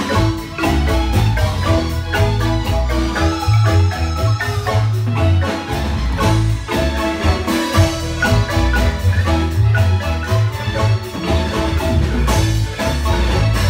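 Wooden-keyed marimba played with mallets by three players at one keyboard: a quick, rhythmic melody of struck notes over a strong, steady bass line.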